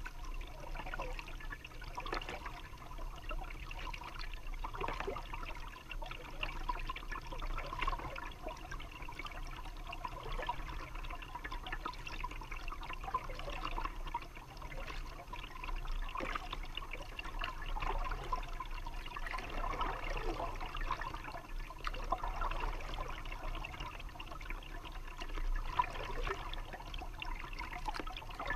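Paddle strokes in calm river water: water trickling and dripping off the blade, with light splashes every few seconds.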